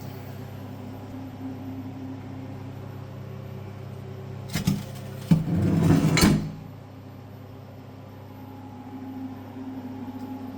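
A steady low hum, with two short metallic knocks about four and a half seconds in. About a second later comes a louder clatter of steel lasting roughly a second.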